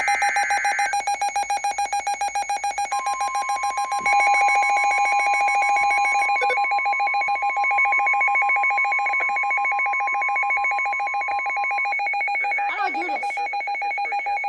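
Weather radio receiver's alert alarm beeping loudly and rapidly, set off by an incoming severe thunderstorm warning. It opens on the tail of the SAME data-burst screech, and from about three seconds in to about twelve the broadcast's steady 1050 Hz warning alarm tone sounds under the beeping.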